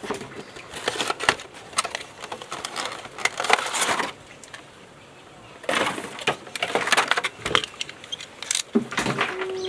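An action figure's box being opened by hand: packaging rustling, crinkling and scraping in irregular bursts, with a short lull about halfway through.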